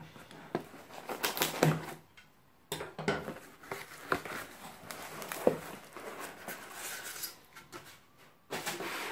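Cardboard box being opened by hand: the flaps scrape and bend open, with rustling and a few light knocks coming in irregular bursts.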